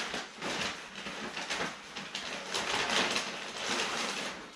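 Brown paper fast-food bag rustling and crinkling as a hand rummages inside it among the paper-wrapped food, a dense run of small crackles that dies away near the end.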